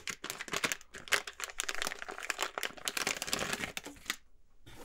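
Clear plastic bag crinkling as hands open it, a dense run of irregular crackles that stops about four seconds in, followed by one light tap near the end.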